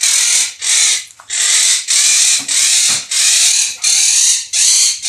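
A parrot screeching over and over: about nine harsh, loud squawks, each around half a second long, in a steady rhythm.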